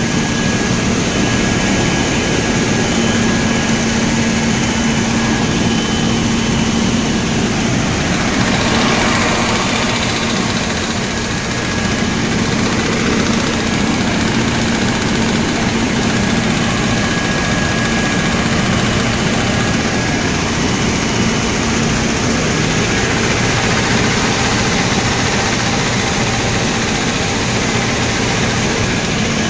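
Coffee processing machinery running steadily: a continuous loud mechanical drone with a steady hum, and a brief rush of louder hiss about nine seconds in.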